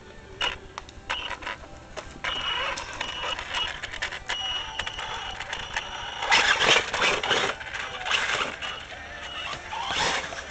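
Electric motor and drivetrain of an Axial Yeti Rock Racer RC truck whining high-pitched in on-and-off spurts as it is throttled. Loud rustling and crunching of dry leaves and dirt comes about six seconds in and again near the end.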